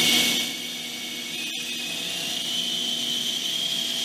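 Electric machinery running: a rushing air hiss with a whine that drops away about half a second in, then a steady high-pitched whine that slowly rises in pitch over a low hum.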